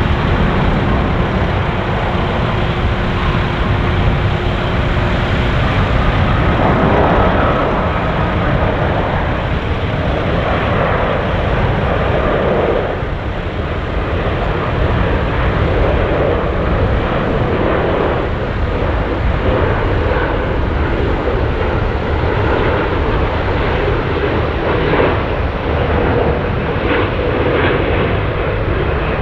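Airbus A350-1000's Rolls-Royce Trent XWB turbofan engines on final approach with landing gear down: a loud, steady jet rumble throughout.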